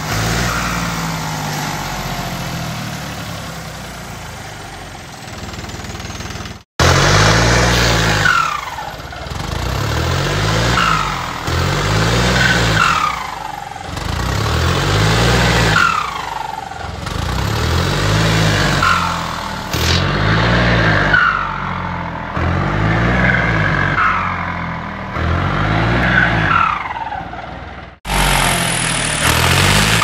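Turbocharged John Deere tractor diesel engine revved again and again, about one blip every two seconds. Each rev is followed by a whistle that falls in pitch as the turbo spools down, from the homemade turbo whistle fitted to it.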